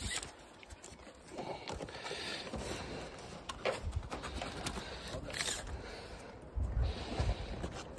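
Handling noise as a tape measure and pencil scrape and rustle against breathable roofing underlay, in short irregular scratches, with a few low thumps about three-quarters of the way through.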